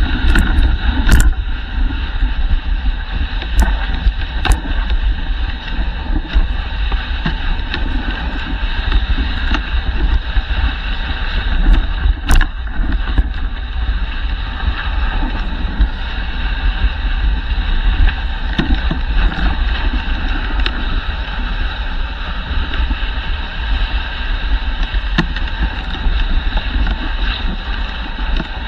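Dog sled gliding over a packed snow trail: a steady hiss and rumble of the runners, with wind buffeting the microphone and a few sharp knocks as the sled hits bumps, the loudest about twelve seconds in.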